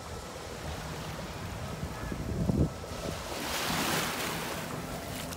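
Small waves lapping onto a sandy beach; one washes in as a swelling hiss about three seconds in and fades. Wind rumbles on the microphone throughout, with a short loud buffet a little before the wave.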